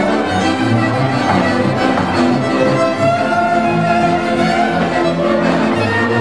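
Transylvanian village band playing a dance tune: several violins bowing the melody together, over a steadily pulsing bass line from the contra and double bass.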